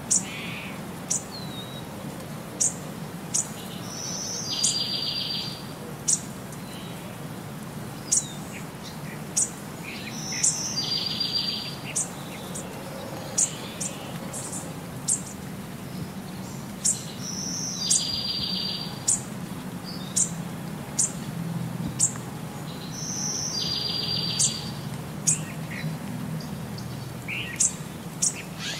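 Looped birdsong: short high chirps about every second and a half, and a trilled phrase that repeats about every six seconds, over a low steady hum.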